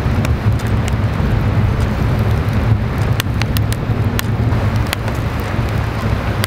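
Firewood burning fiercely in a wood-fired pizza oven: a steady low rumble of the flames with scattered crackles and pops from the burning wood.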